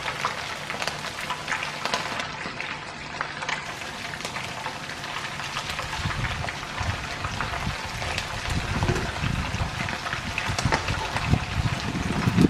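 Batter-coated pork pieces frying in hot oil in a skillet: a dense, steady crackling sizzle. A low rumble joins in from about halfway through.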